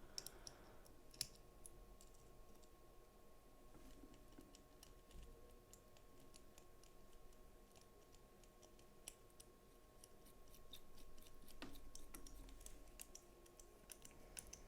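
Near silence broken by faint, scattered clicks and ticks of a small T6 Torx driver working the screws of a Spyderco Delica's aftermarket scales as they are tightened down, with one sharper click a little past halfway.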